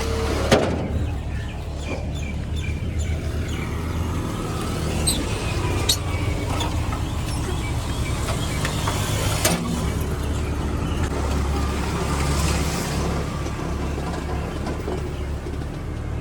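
A motor vehicle's engine running steadily, with a few sharp clanks or knocks scattered through it.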